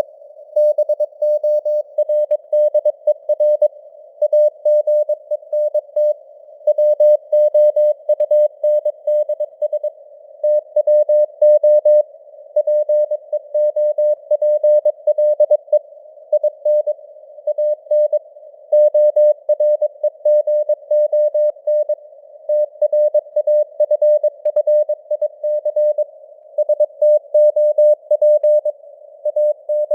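Morse code at 22 words per minute spelling out news headlines: a single tone of about 600 Hz keyed on and off in dots and dashes, inside a narrow band of simulated radio hiss.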